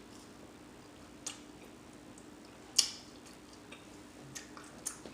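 Eating mouth sounds: a few sharp, isolated lip smacks and wet chewing clicks, the loudest a little under three seconds in, over a faint steady hum.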